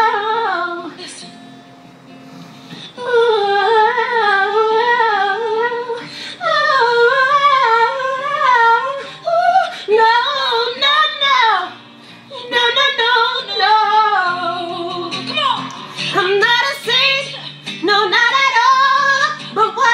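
A woman singing wordless vocal runs with wide vibrato into a handheld microphone, in several phrases with short breaths between, over steady low backing notes.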